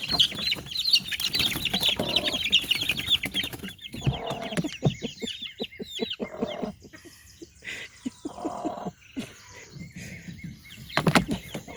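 Baby chicks peeping rapidly and high, a dense flurry for the first four seconds, with a mother hen clucking lower in between. A short loud knock comes near the end.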